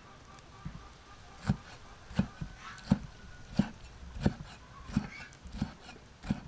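Cleaver chopping pickled bok choy on a thick wooden chopping board: a steady series of knocks of the blade through the leaves into the wood, about three every two seconds.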